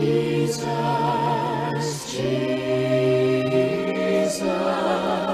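Vocal ensemble singing the word "Jesus" in slow, sustained close harmony, each chord held with vibrato and the harmony shifting twice.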